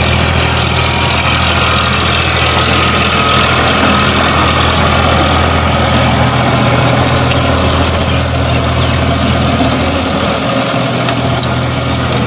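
Eicher 551 tractor engine running steadily under load while pulling a tillage implement lowered fully into dry, hard soil. It holds a constant pitch without bogging down.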